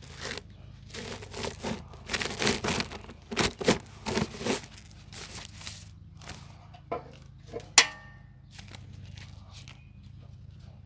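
A plastic firewood bag rustling and crinkling in a string of short scrapes as it is worked over the bagging station's sheet-metal barrel. About eight seconds in there is one sharp clank with a short ring.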